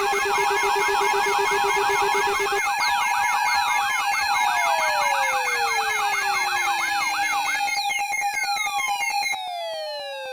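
Layered electronic alarm and siren tones: steady held alert tones under a fast warbling siren sweep, about three sweeps a second. Long falling glides join from about three seconds in. The warble stops about three quarters of the way through, and near the end the mix drops in level, leaving only falling tones.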